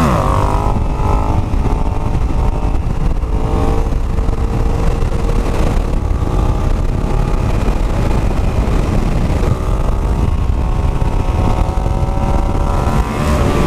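Yamaha MT-07's parallel-twin engine running through a Zard full exhaust system while riding at speed. The engine pitch climbs near the start and again toward the end, holding steady in between, with wind noise on the microphone.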